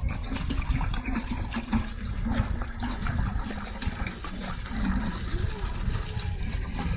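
Water pouring and splashing, with many small irregular splashes over a steady low rumble.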